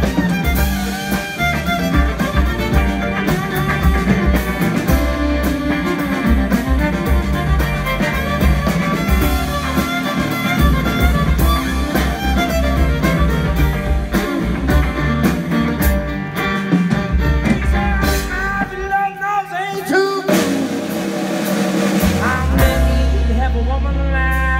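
Live band playing a song on fiddle, electric and acoustic guitars, bass guitar and drum kit. About three-quarters of the way through, the bass and drums drop out for a couple of seconds, leaving a lead line with bending notes, then the full band comes back in.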